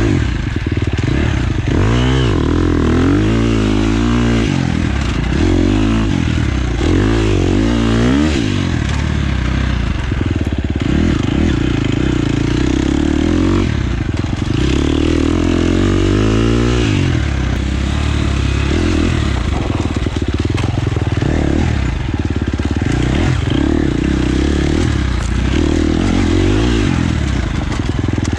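Husqvarna FX 350's single-cylinder four-stroke engine being ridden on a dirt trail, its revs rising and falling every second or two with the throttle and gear changes.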